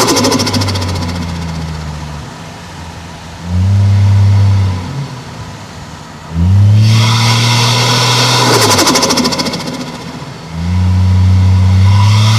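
Toyota 1JZ-GTE turbocharged 2.5-litre straight-six in a car accelerating hard in repeated pulls, each rising in pitch, with the throttle lifted between them so the engine drops back. Turbo flutter at the lifts.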